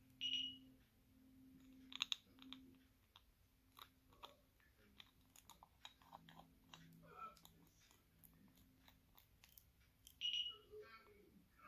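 Faint clicks and taps of long acrylic nails on a small plastic glitter jar as it is turned in the hands and its screw lid worked, with two brief, louder high-pitched sounds, one just after the start and one near the end.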